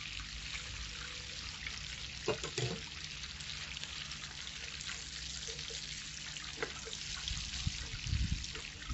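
Diced bacon and freshly added chopped onion sizzling steadily in hot oil and butter in a frying pan.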